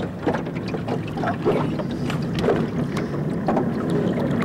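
A boat's engine running steadily, with wind buffeting the microphone and a few small knocks scattered through it.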